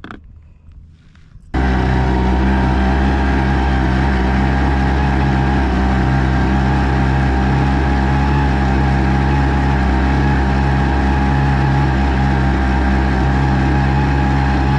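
Small outboard motor running at a steady speed, pushing an inflatable boat along; the sound starts abruptly about a second and a half in.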